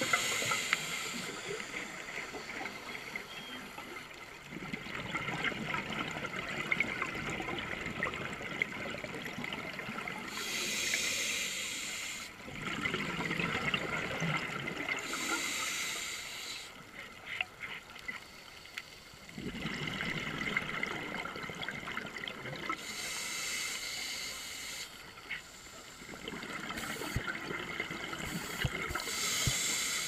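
Scuba regulator breathing heard underwater: spells of bubbling from exhaled air every several seconds, over a steady watery hiss.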